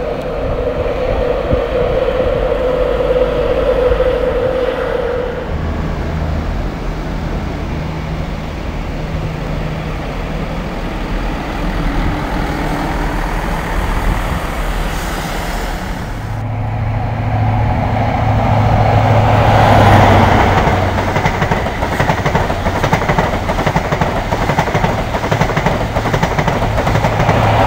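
Trains moving through a station: a Northern Rail Class 158 diesel multiple unit running with engine and wheel noise. Then, after a break, an East Coast Class 91 electric locomotive with Mk4 coaches pulls out, with a steady low electric hum and wheel-on-rail noise growing loudest about twenty seconds in.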